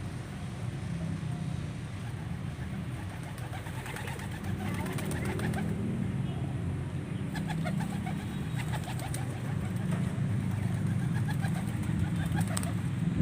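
Domestic pigeons cooing and calling in short notes over a steady low rumble, with a few sharp clicks near the end.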